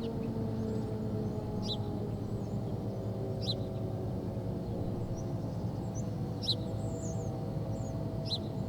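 An outdoor tornado warning siren winding down, its tone faint and slowly sinking in pitch under a steady low rumble of town ambience. A bird gives a short chirp about every two seconds.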